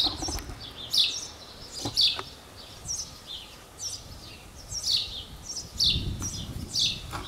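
Small birds chirping, with short, high, falling calls repeated about once or twice a second. A few light clicks from the camcorder being handled come in the first two seconds, and a brief low rumble comes about six seconds in.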